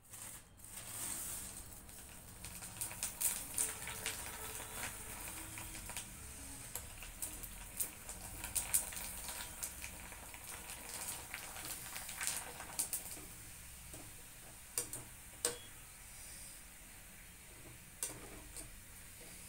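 Colourful dried nali fryums frying in hot oil in an iron kadai: a steady sizzle with many sharp crackling pops, which thin out to a few scattered pops in the last few seconds.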